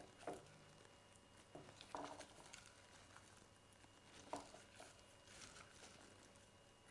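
Faint rustling of dry garlic skins being picked apart by hand in a stainless steel bowl, with a few light ticks of cloves and fingers against the bowl and board.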